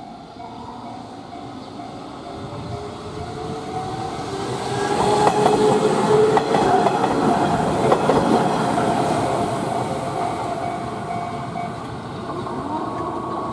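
Hanshin Mukogawa Line electric train passing close by: it rumbles louder as it approaches, its wheels clack over the rail joints at the peak about halfway through, and then it fades as it moves away. A level-crossing warning bell rings steadily under it.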